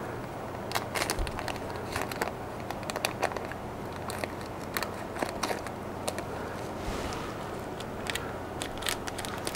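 Small clear plastic bag crinkling in the hands while scissors snip it open, a scatter of short crackles and clicks.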